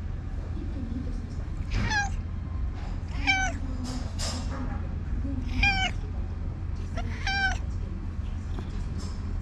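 A cat meowing: four short meows spread over several seconds, over a steady low hum.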